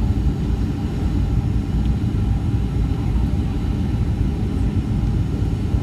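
Boeing 737-700 cabin noise on final approach: a steady low rumble of airflow and engines heard inside the cabin.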